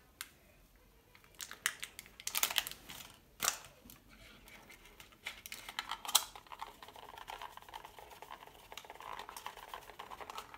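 Paper powder packet crinkling and light clicks of handling a plastic candy mould tray, sharpest in the first few seconds, then softer scraping of a small plastic stick working in the tray.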